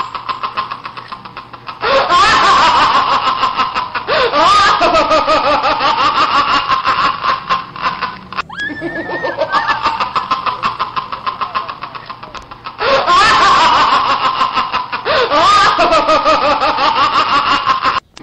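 Exaggerated laughing, a laugh sound effect that repeats in a loop, with a short break about eight seconds in.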